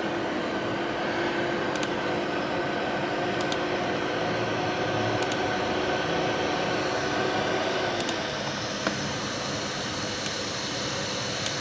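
MacBook Pro cooling fan spinning really fast, a steady whir with a faint hum that eases slightly about eight seconds in, with a few faint ticks. The fan running flat out on this liquid-damaged logic board is taken as a sign that something went wrong while cleaning.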